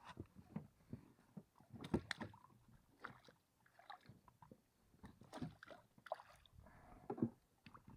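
Quiet, irregular small splashes and light knocks of a landing net being handled in the water against the side of an inflatable boat.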